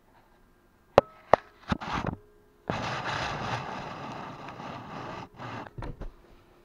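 A cat striking a small camera with its paws: two sharp knocks and a few lighter taps. Then comes a few seconds of loud scraping and rubbing as the camera is shoved about on a wooden shelf and the cat's body presses against it, followed by a couple more knocks.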